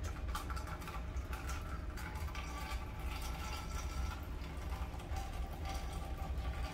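Filtered water running from a purifier filter outlet tube into a plastic cup, as rusty water is pushed through a three-stage filter set (sediment block, post carbon, nano membrane). A steady low hum runs underneath.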